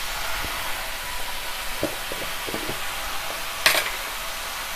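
Cubed ripe cucumber frying in a kadai on a gas stove: a steady sizzle with a few small clicks in the middle, and one short sharp clatter a little past halfway.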